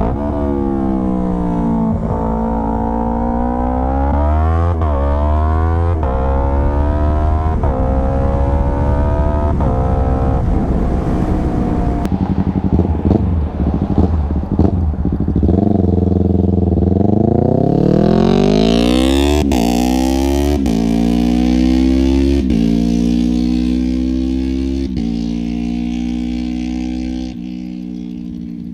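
Yamaha R3's 321 cc parallel-twin engine through a full Akrapovic exhaust, accelerating hard through the gears. The pitch climbs and then drops abruptly at each quick upshift. Around the middle the note turns rougher and less steady, and near the end the sound fades as the bike pulls away.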